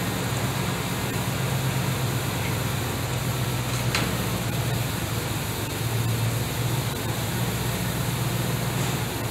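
Steady low machine hum with an even hiss, and a single light click about four seconds in.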